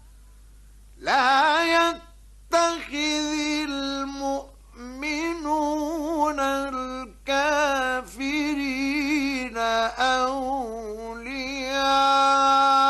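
Male Quran reciter chanting in the melodic mujawwad style, starting about a second in: long, ornamented phrases with wavering vibrato, broken by short breaths, and ending on a long held high note. The recording is from the 1960s.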